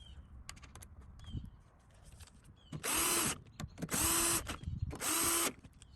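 Cordless drill/driver run in three short trigger pulls, the motor spinning up each time, running in the 10 mm bolts that hold the window regulator in the door. A few light clicks of handling come before.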